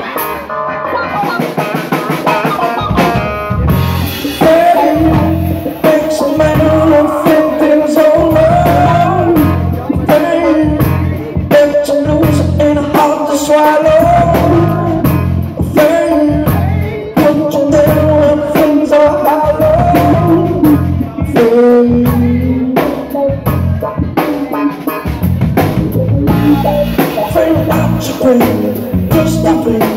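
Live rock band playing a cover song. A drum kit comes in about three seconds in under the guitar, with a held, wavering melody line running over the beat.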